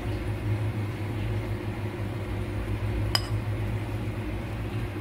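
A ceramic plate clinks once against a ceramic bowl about three seconds in, as shredded boiled chicken is tipped from the plate into the bowl. A steady low hum runs underneath.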